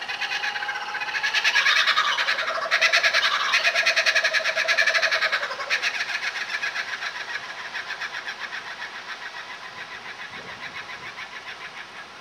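Laughing kookaburra giving its laughing call in answer to another kookaburra: a rapid run of loud hooting notes that builds quickly, peaks in the first half, then trails off into a long series of evenly spaced chuckles that fade away.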